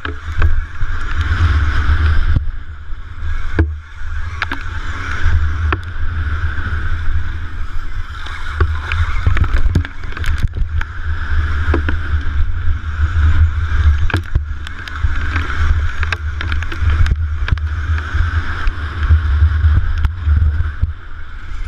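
Onboard sound of an electric KTM Freeride motocross bike at race speed. The electric motor's whine swells and fades with the throttle over heavy wind buffeting on the helmet or bike camera, with frequent sharp clicks and knocks from the bike over the track.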